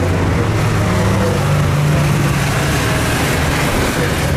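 Car engine running as a car drives along the circuit: a deep steady engine note that rises slightly about a second in, over a broad wash of noise.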